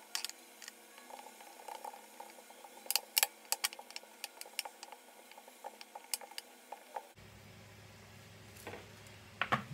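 Wooden rolling pin rolling out pie dough on a countertop: irregular light clicks and knocks, with a cluster of louder taps about three seconds in. A low steady hum comes in about seven seconds in, with a couple more knocks near the end as the dough is handled.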